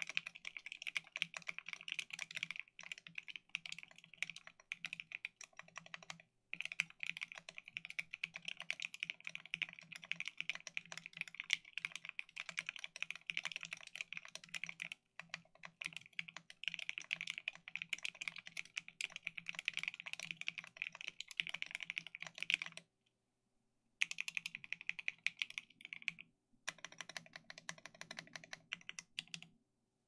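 Fast typing on a small mechanical keyboard: a dense, rapid run of keystroke clacks with short pauses, a break of about a second roughly three-quarters of the way through, and the typing stopping just before the end.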